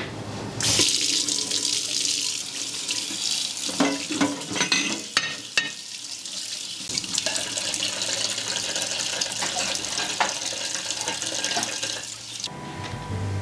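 Kitchen tap running into a stainless steel sink while dishes are washed by hand. The water comes on about half a second in and is shut off near the end, with a few knocks of dishes about four to six seconds in.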